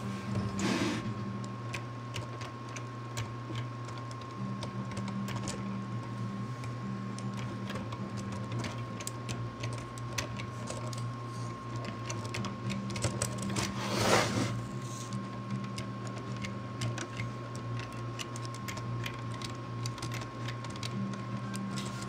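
Small electric motors of a LEGO Mindstorms EV3 build whirring, with a second motor tone switching on and off every few seconds. Many light plastic clicks run through it, with a louder clatter just under a second in and the loudest one about 14 seconds in.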